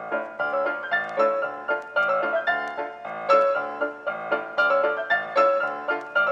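Background music: a lively piano-led tune with quick, evenly struck notes.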